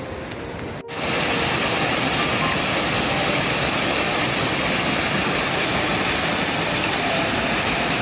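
Waterfall pouring over rocks into a plunge pool: a loud, steady rush of falling water that starts abruptly about a second in, with quieter steady outdoor noise before it.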